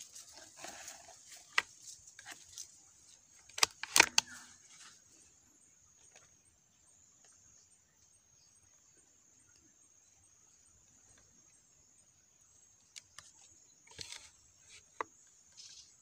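Forest insects chirring steadily at a high pitch, with rustling in dry leaves and a few sharp knocks from handling, the loudest a quick cluster about four seconds in and more near the end.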